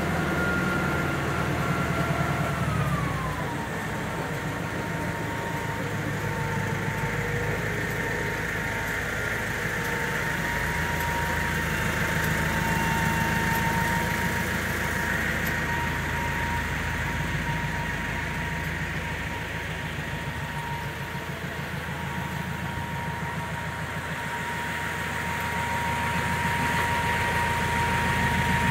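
Kuhn Primor 3560 straw chopper running, its rotor and blower whining over the low drone of the tractor engine that drives it. The whine drops in pitch about three seconds in, then holds steady.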